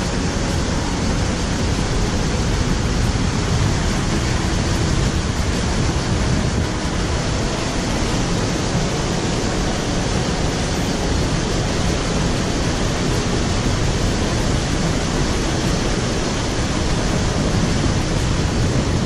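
Steady rushing of the Alcantara River's small cascades spilling over rocks into the pools of its gorge.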